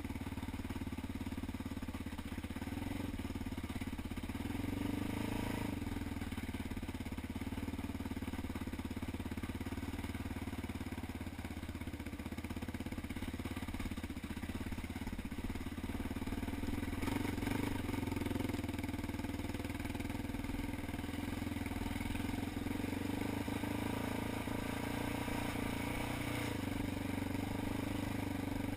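ATV engine running steadily under way, with its note shifting slightly a few times as the throttle changes.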